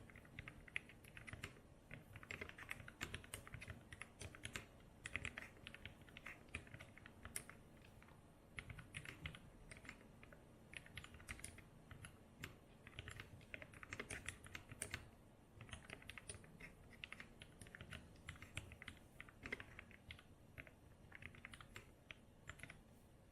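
Typing on a mechanical keyboard with lubed vintage Cherry MX Black linear switches in a brass TX60 case, fitted with GMK keycaps: quick runs of keystrokes broken by brief pauses.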